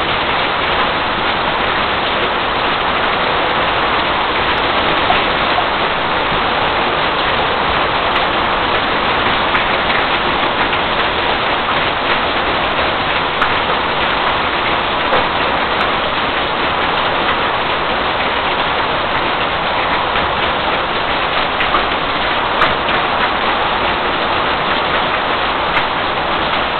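Heavy thunderstorm rain pouring down steadily: an even, dense hiss with scattered sharper drop hits close by.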